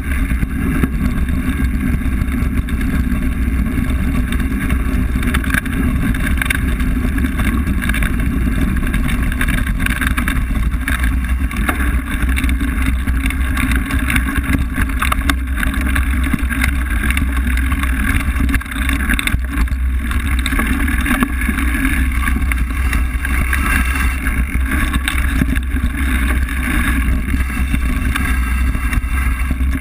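Wind buffeting an action camera's microphone over the rumble and rattle of a mountain bike rolling over a leaf-covered dirt trail, with a steady run of small knocks from bumps and roots.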